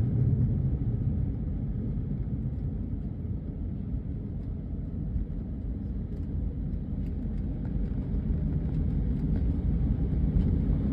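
Steady low rumble of a jet airliner on the runway after landing, easing off a little over the first few seconds.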